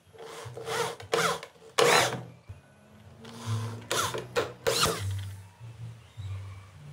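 Corded electric drill run in about five short bursts into a wooden frame, its motor pitch sweeping up and down within each burst.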